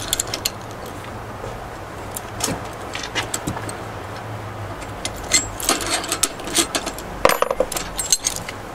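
Metal clicks and clinks of a hand flaring tool being worked on a copper propane line. They come thicker after about five seconds and in a cluster near the end as the clamp bar is taken off the tube. A low steady hum runs underneath.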